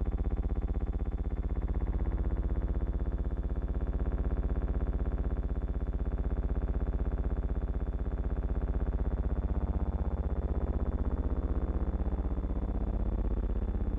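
A steady low electrical buzz, rich in overtones and with a fast flutter, holding at one level throughout. It is not the sound of the scene.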